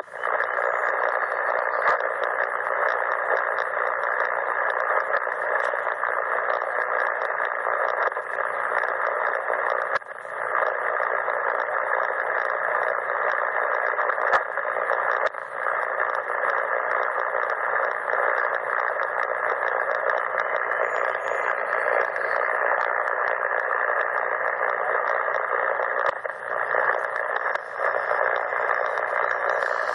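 Steady static hiss from a CommRadio CR-1a receiver's speaker, tuned to 7.272 MHz on the 40-metre band with no station transmitting. The hiss is narrowed to a voice-width band by the receiver's filter and dips briefly a few times.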